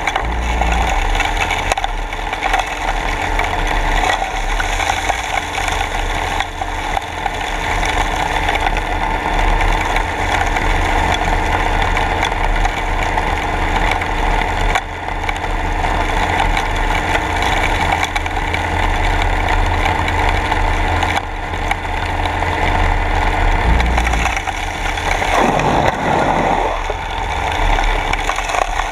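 Submersible dredge running steadily, heard underwater at its suction nozzle: a constant machine hum with many steady tones over the rush of water and sand being drawn into the ribbed intake hose. About 25 seconds in, a brief sound sweeps down in pitch and back up.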